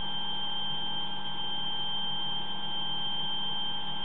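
Tricorder sound module playing its flatline sound effect through a small speaker: one unbroken, high-pitched electronic tone held steady, like a medical monitor's flatline, over a lower steady hum.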